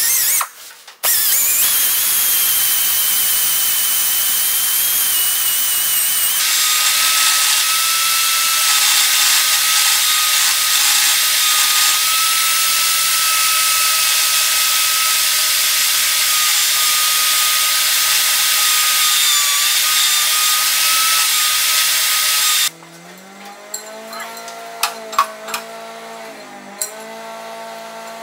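Angle grinder clamped in a vise, running a sanding disc with a high whine while a forged spring-steel spoon is sanded against it: a steady, loud grinding that thickens about six seconds in. Near the end it cuts off abruptly to a much quieter low hum with a few clicks.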